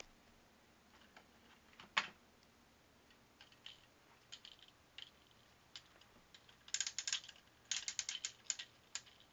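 Handling noise from a tablet being carried by hand: scattered clicks and taps, then quick runs of clicking about seven and eight seconds in.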